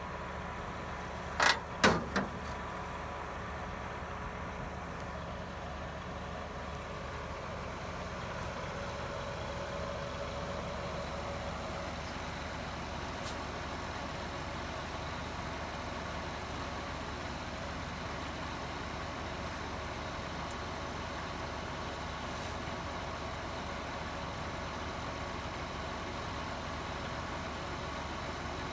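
An engine running steadily at idle, a low even drone. Two sharp knocks, close together, come about a second and a half in.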